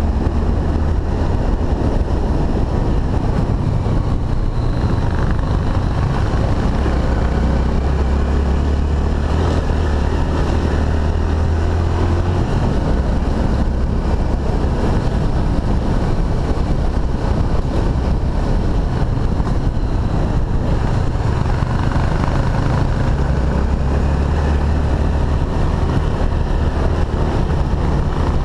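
Honda XRE300's single-cylinder four-stroke engine running steadily under way, heard from on board with wind noise over the microphone. The low engine hum eases from about twelve seconds in and strengthens again near the end.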